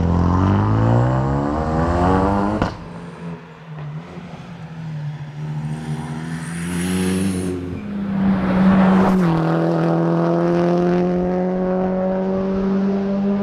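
Tarmac rally car engines at full throttle. One revs up hard and cuts off sharply about two and a half seconds in, followed by quieter running. A second loud swell of engine noise about eight seconds in settles into a steady high engine note that slowly climbs.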